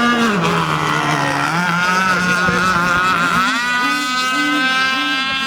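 Radio-controlled racing boats' engines running at speed, with a high buzzing whine that drops in pitch early on, then climbs as they throttle up about one and a half and three and a half seconds in, and holds fairly steady with small wavers.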